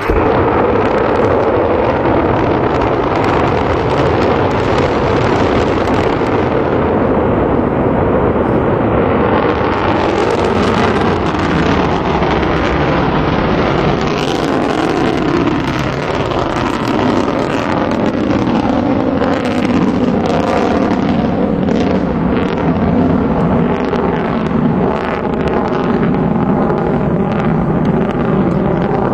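Delta II rocket's first-stage engine and strap-on solid rocket boosters during liftoff and ascent, heard from a distance as a loud, steady rocket noise with crackle.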